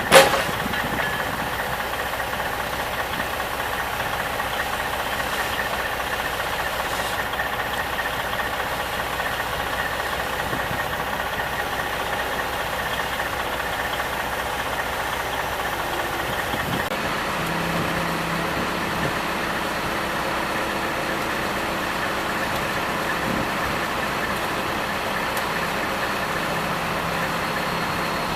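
Diesel engine of a portable scrap baler running steadily, with a sharp click right at the start. About seventeen seconds in, the tone of the machine changes and a new low hum comes in.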